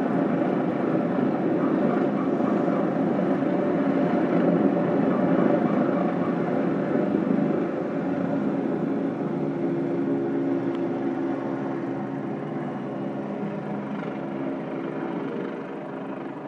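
Low-flying helicopter overhead, its rotor and engine noise loud and steady, growing gradually fainter over the second half.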